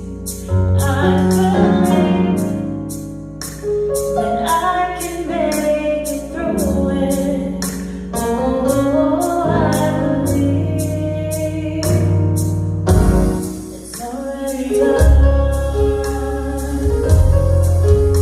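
Worship song: a sung melody over a steady instrumental accompaniment with held bass notes.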